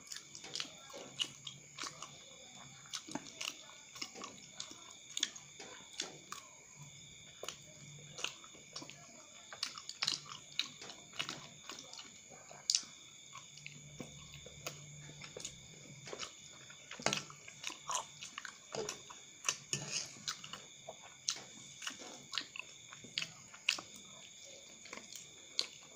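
Close-up wet chewing and biting of chewy cilok tapioca balls in chili sauce, with many short clicks throughout as a fork works in a metal bowl, over a faint steady high whine.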